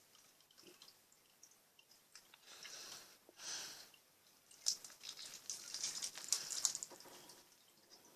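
Slime being squished and worked, with soft wet squelches and small popping clicks as air bubbles burst in it. The pops come thickest in a crackling run from about halfway through to near the end.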